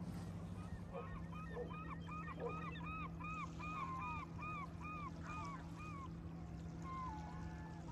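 A run of honking calls from waterfowl, about two a second for some five seconds, over a steady low hum.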